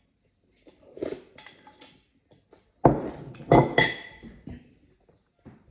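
Dishes and cutlery knocking and clinking together, a few clinks about a second in and a louder run of knocks and ringing clinks about three seconds in.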